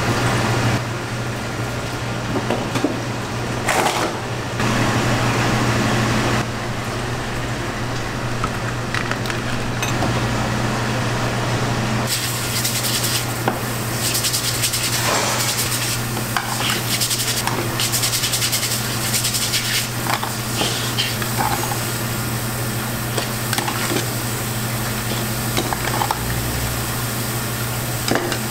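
Shellfish sizzling on a grill, with scattered clatter of shells and utensils over a steady low hum. The hiss grows louder about twelve seconds in.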